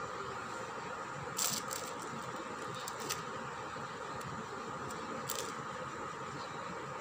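Steady background hum and hiss, with three short soft clicks about a second and a half in, at three seconds and past five seconds.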